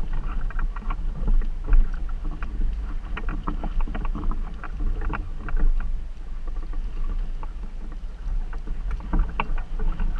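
Water slapping and splashing against the side of an inflatable boat under sail, in many short irregular splashes, over a steady low rumble of wind buffeting the microphone.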